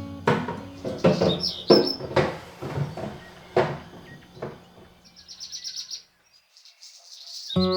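A small bird chirping, with a quick trill of repeated notes about five seconds in, over a series of sharp knocks and clatters in the first half.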